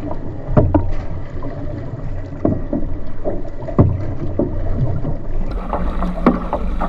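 Outrigger canoe paddles splashing into the water stroke after stroke beside the hull as the crew races, over a steady low wind rumble on the microphone.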